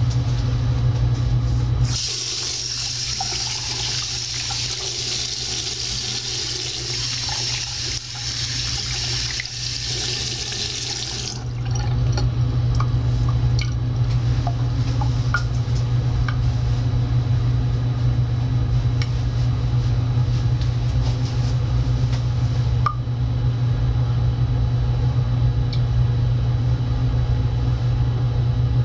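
Bathroom sink faucet running in a steady stream for about ten seconds, then shut off abruptly. A steady low hum remains, with faint irregular ticks of the tap dripping.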